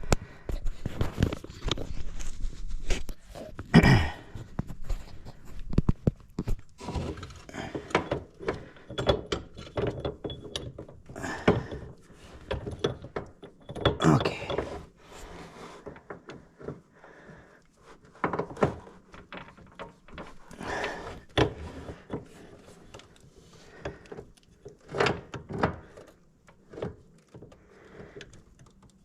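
Metal drive-shaft parts being handled and fitted while a U-joint is reassembled: irregular clinks, knocks and thunks, some ringing briefly. The loudest knocks come about four seconds in and again about fourteen seconds in.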